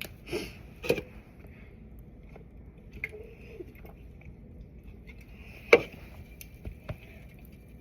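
A few short, sharp clicks and knocks over a quiet room, the loudest a little before six seconds in, with a faint brief low sound around three seconds in.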